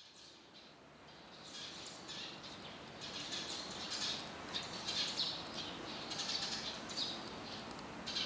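Small birds chirping in the background, a continual jumble of short high chirps.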